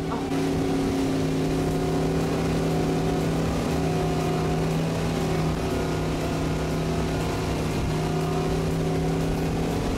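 Supreme S220 wake boat's inboard engine running at a steady speed under load while towing a wakeboarder, a constant hum that holds one pitch throughout.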